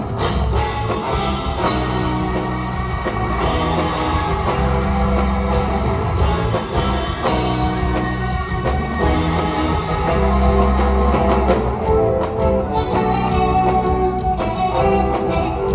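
Live rock band playing an instrumental stretch with electric guitar, bass and a drum kit keeping a steady beat.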